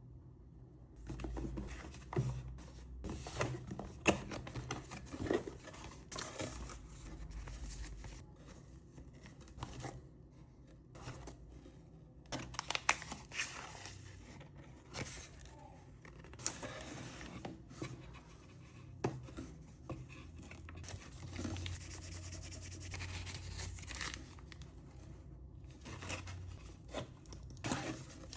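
Packaging being opened and handled by hand: tearing, scratching and rubbing with scattered clicks and knocks.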